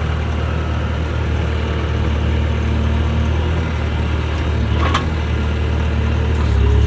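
Skid steer's diesel engine idling steadily at the turtle (low-speed) throttle setting to warm up. A single sharp click comes about five seconds in, and the engine note swells slightly near the end.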